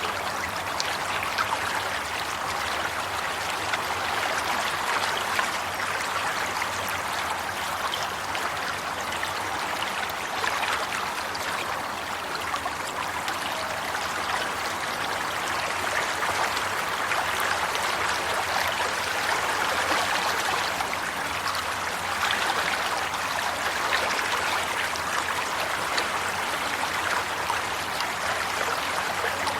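Running water flowing steadily, a continuous rush with many small splashes and trickles through it.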